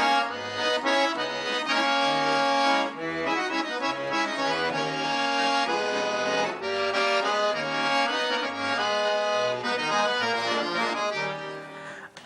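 Instrumental introduction of a song, played on an accordion: a melody over rhythmic bass notes, easing off near the end just before the singing comes in.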